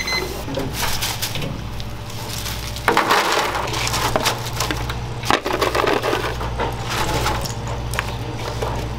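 Freshly fried French fries tipped from a wire fryer basket into a perforated stainless steel pan and scooped into a paper tray: crisp rustling and scraping with sharp knocks, the loudest about three seconds in and again a little past five seconds. A steady low hum runs underneath.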